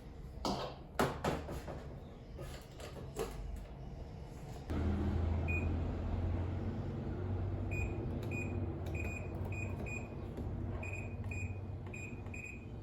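A few clicks and knocks, then about five seconds in a washing machine starts up with a steady hum while its control panel beeps again and again as buttons are pressed.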